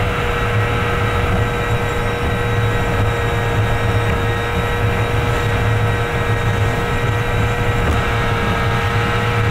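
Steady drone of a truck cruising on an expressway, heard inside the cab: engine hum with a constant tone over road noise, unchanging throughout.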